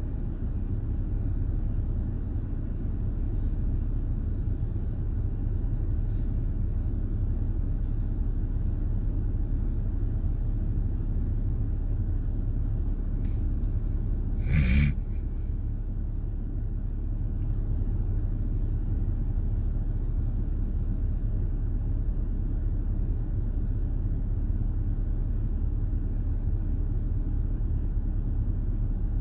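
Steady low rumble of a car heard from inside the cabin, with one brief sharp noise about halfway through.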